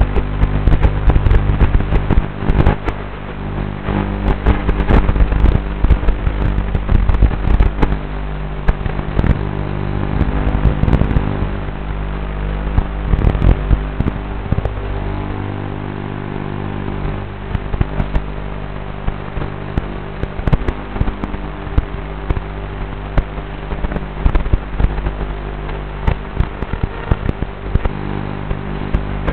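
Tiny whoop micro quadcopter's motors and propellers buzzing in flight, several steady hums at once that shift in pitch as the throttle changes, broken throughout by frequent sharp crackles and clicks.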